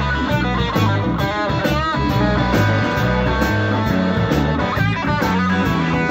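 Electric blues band playing live, led by an electric guitar with bent, wavering notes over bass, drums and keyboard. The bent notes come about a second in and again near the end, over a steady cymbal beat.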